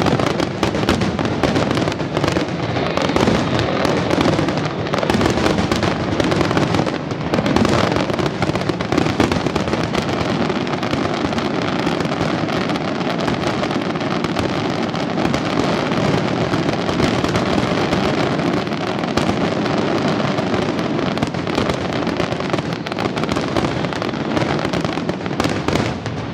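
Fireworks going off in a dense, unbroken barrage of bangs and crackle.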